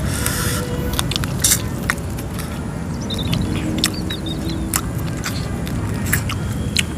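A person chewing and eating, with scattered short crunching clicks and mouth smacks over a steady low background rumble.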